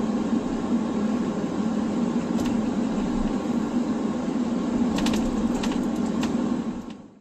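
Steady road and engine noise inside a moving car's cabin, with a few light clicks about two and a half seconds in and again a couple of times near the end, then fading out.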